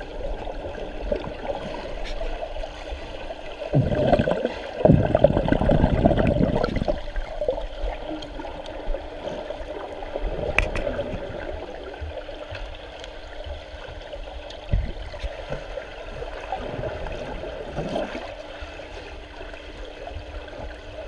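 Swimming-pool water heard through a camera held underwater: muffled bubbling and gurgling, with a much louder rush of bubbles and churned water about four to seven seconds in. A faint steady low hum runs underneath.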